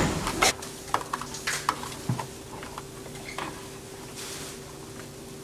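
Light clicks and knocks of kitchen utensils and dishes being handled on a table, a dozen or so in the first two seconds or so, then only a steady faint hum.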